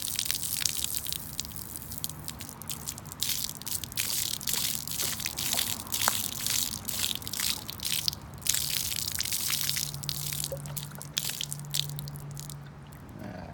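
Upholstery cleaner extractor working a seat: irregular watery spraying and slurping suction bursts as the wand draws dirty water out of the fabric, over a low hum that comes and goes.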